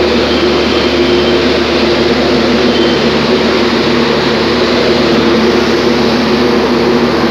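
Steady loud drone of a heavy diesel engine running at a train standing beside the platform, with several steady hum tones and no change in pitch.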